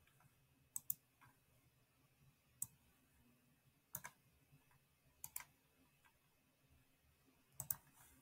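Computer mouse clicks, sparse and some in quick pairs, against near silence.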